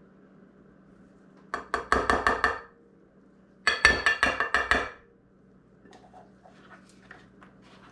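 Metal measuring cup rapped quickly against the rim of a mixing bowl to knock cocoa powder out, in two ringing runs of clinks about eight a second, each lasting about a second. Then faint scraping clicks as the cup scoops into the cocoa can.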